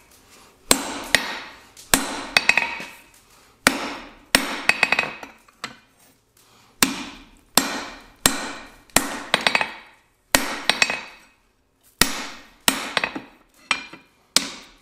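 Hand hammer striking a hot steel bar on an anvil, about a dozen and a half irregular blows with a short pause midway. Each blow rings and dies away.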